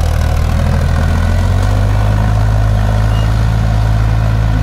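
Sonalika tractor's diesel engine running steadily, its note shifting slightly about a second and a half in.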